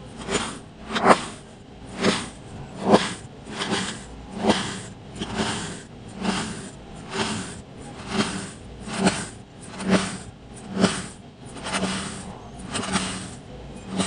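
Knife slicing through packed kinetic sand, one cut about every second: each a short gritty crunch ending in a dull knock as the blade meets the wooden board.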